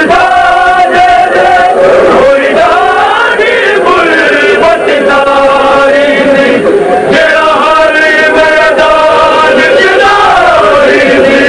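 Men's voices chanting a Punjabi noha, a Shia mourning lament, with long held lines that slide up and down in pitch. It is loud throughout, with no pauses.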